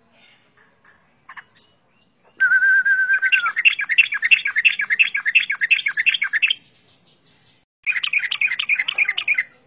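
Yellow-vented bulbul singing. About two seconds in comes a short steady whistle, which breaks into a fast, bubbling run of repeated notes lasting about three seconds. A second burst of the same run comes near the end.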